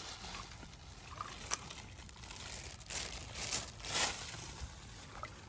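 Thin plastic bag crinkling as it is handled and held open, in a few short rustles about three to four seconds in.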